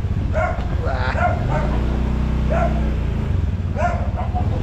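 A dog barking repeatedly in short barks, over the steady low hum of a vehicle engine running.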